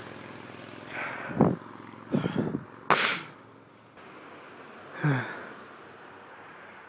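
A man sneezing. A few catching, gasping breaths build up, a single sharp sneeze breaks out about three seconds in, and a short voiced sigh with falling pitch follows about five seconds in.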